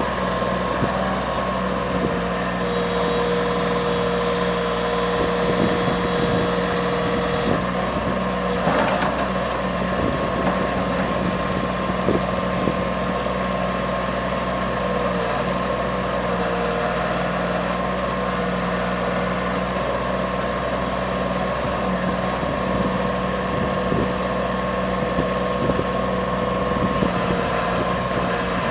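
Bobcat 553 skid steer engine running steadily, with a constant whine over the engine note and a higher hiss that comes in twice.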